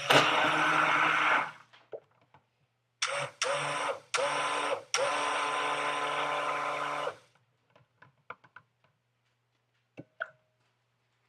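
Stick blender pulsed on and off in soap batter, mixing in fragrance oil: a run of about a second and a half, then several short pulses and a longer run of about two seconds, followed by a few faint clicks.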